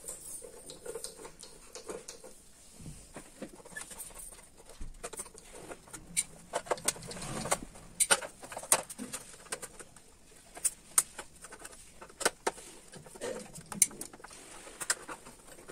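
Scattered sharp clicks and taps as the metal case of a set-top box receiver is handled and its screws are taken out, busiest in the second half. Low cooing sounds come now and then in the background.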